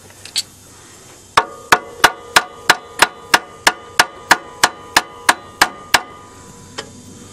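Hammer beating on a vice grip clamped to the alternator pulley nut: about fifteen quick metallic blows at roughly three a second, each with a short ring, to try to turn the seized alternator.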